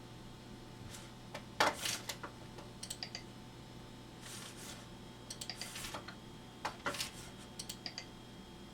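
Several short clusters of quick clicks from someone working a computer's keyboard or mouse, over a steady low hum.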